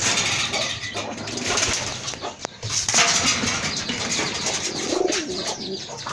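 Domestic pigeons cooing at their nests, heard over constant rough handling or background noise, with a clear coo about five seconds in.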